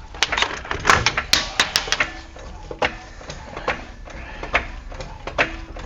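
Metal clicks and clanks of hand tools working on a truck's wheel hub: a quick flurry of sharp clicks at first, then single knocks about once a second, several with a short metallic ring.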